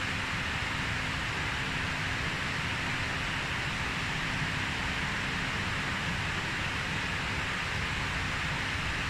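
Steady, even hiss of background machine or air noise, with a faint low hum that drops out a little past halfway.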